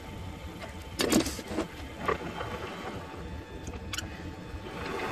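Mini lathe running steadily, its spindle turning the workpiece against a drill bit held in the tailstock drill chuck. A metallic clatter comes about a second in, then a couple of lighter clicks, from the locking pliers gripping the drill chuck.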